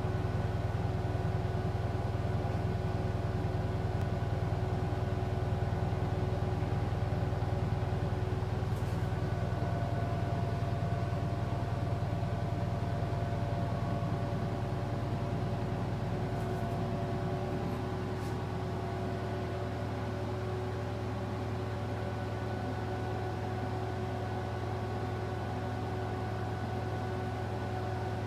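Four Eminence Gamma 15A 15-inch woofers in two Kustom KSE-215H cabinets, driven with a 15 Hz sine wave at 525 watts each, pump their cones near their mechanical excursion limit (Xlim). They make a steady low drone, along with the whir of the hot Class H amplifier's cooling fan. The level eases slightly about halfway through.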